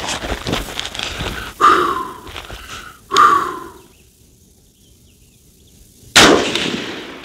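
An AR-style rifle fires a single shot from the prone position about six seconds in, sharp and loud, with a tail that dies away. Before it come scuffing on gravel and a rubber mat and two loud half-second sounds as the shooter settles prone, then a quiet pause while he aims.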